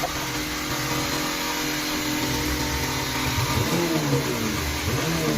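Car engine running, its revs rising and falling a few times in the second half; the car has a misfire that makes it jerk.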